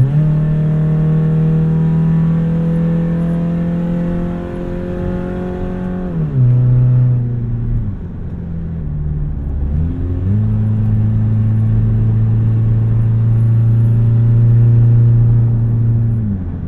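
XV20 Toyota Camry engine pulling hard through a broken, nearly open exhaust, loud and rowdy, its note rising steadily under acceleration. The pitch drops as the automatic upshifts about six seconds in, sits lower for a few seconds, then climbs again from about ten seconds and drops at another shift near the end.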